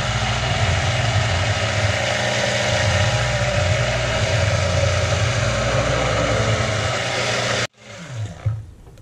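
Handheld stick blender running steadily with its head down in liquid soap batter of melted fats and lye solution, mixing it toward saponification. It stops abruptly near the end.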